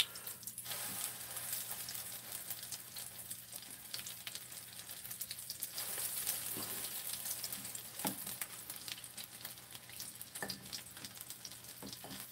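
Battered Japanese angelica-tree (dureup) shoots frying in oil in a nonstick frying pan: a steady sizzle with fine crackles, with a few light taps about eight and ten seconds in.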